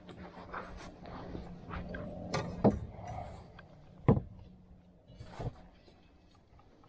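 Knocks and clatter of gear being handled on a pontoon boat's metal railing and deck as a landing net is brought out to land a hooked fish, with two sharp bangs about two and a half and four seconds in. A faint steady low hum runs under the first few seconds.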